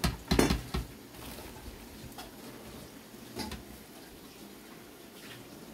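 A few light knocks and clatter in the first second as kitchen items on the counter are handled, then quiet room background with a faint click about three and a half seconds in.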